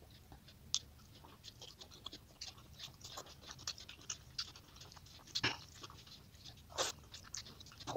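A person eating rice and curry by hand, sped up threefold: a quick, irregular run of small wet chewing and mouth clicks, with a few louder smacks near the middle and towards the end.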